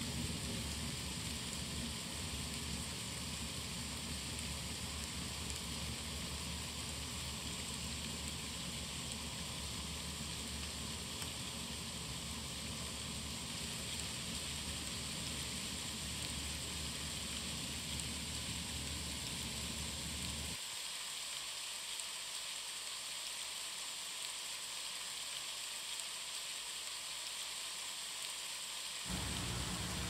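Heavy rain pouring down in a steady downpour hiss. A low rumble beneath it stops abruptly about two-thirds of the way through, leaving only the hiss.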